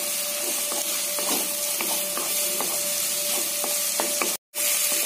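Chopped onions, carrots, beans and capsicum sizzling in hot oil in a kadai, stirred with a wooden spatula that scrapes and taps the pan now and then, over a faint steady hum. The sound cuts out for an instant near the end.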